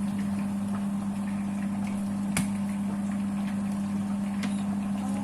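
Steady low electrical hum from a running kitchen appliance, with scattered light clicks and one sharper tap about two and a half seconds in.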